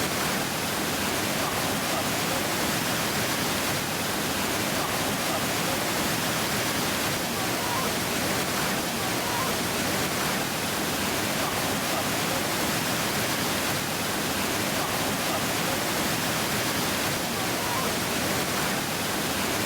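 Waterfall: a steady, even rush of falling water that holds the same level throughout.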